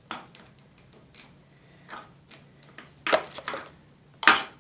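A spoon stirring a thick slime mixture in a bowl, scraping and clicking against the bowl in scattered short strokes, with two louder knocks, one about three seconds in and one near the end.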